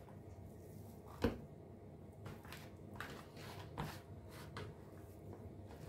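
A single sharp knock about a second in, then faint scraping and light taps as a hand takes oatmeal biscuit dough out of a mixing bowl.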